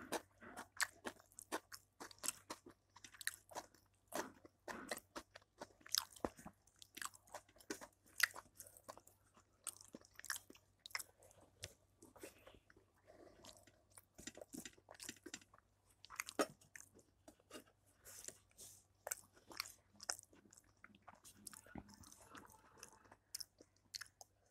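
A person chewing and smacking food close to the microphone, in a run of many short, irregular clicks and wet mouth noises.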